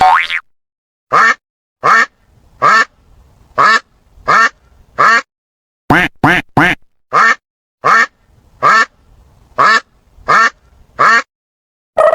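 A duck quacking over and over: about fifteen short, loud quacks, most about two-thirds of a second apart, with a quick triple near the middle. Each quack stops cleanly, with dead silence between. A brief sliding tone sounds at the very start.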